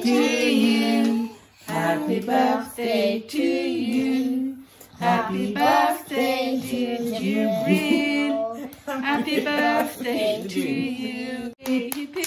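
A woman and children singing together.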